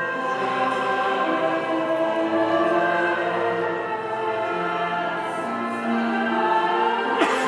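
Choral music: a choir singing slow, long-held chords.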